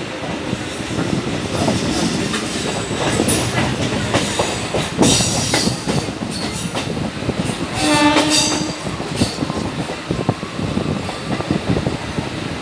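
Train running on rails: steady rumbling noise with rattling clatter, and a single pitched tone lasting about a second around eight seconds in.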